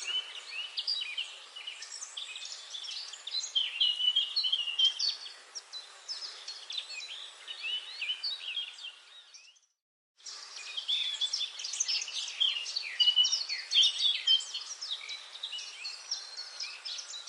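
Many songbirds singing and calling over one another in a dense chorus of quick chirps and trills. A little past the middle it fades away to a brief moment of silence, then cuts back in just as busy.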